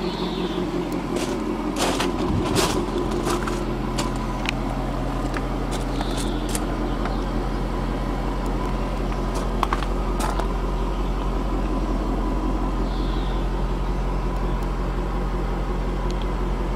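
Jaguar XF R-S 5.0-litre supercharged V8 idling steadily, heard with the bonnet and doors open, with a few short sharp clicks and knocks scattered over it.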